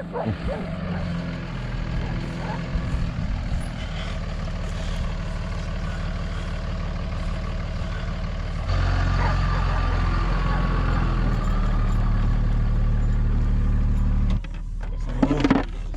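A vehicle engine running steadily. It jumps abruptly louder about nine seconds in and drops back down near the end.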